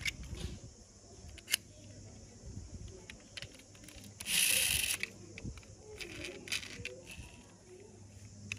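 Small clicks and taps of a die-cast metal toy taxi being handled, its hinged doors opened and snapped shut. A short rasping noise, the loudest sound, comes about four and a half seconds in.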